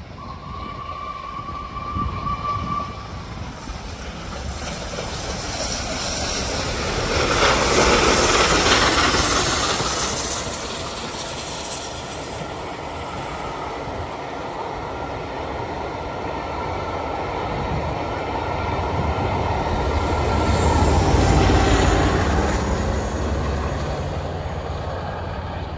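Flying Scotsman, an LNER A3 Pacific steam locomotive, passing at speed with its train of carriages. The noise builds to a peak about eight seconds in as the locomotive goes by. The carriage wheels then run steadily on the rails, and there is a second swell near the end before the sound fades away.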